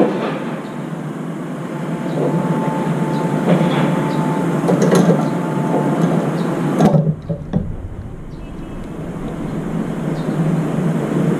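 Steady low urban background rumble, like distant traffic, with a few faint clicks. About seven seconds in, the higher sounds drop away suddenly and a deep rumble swells briefly before the steady rumble returns.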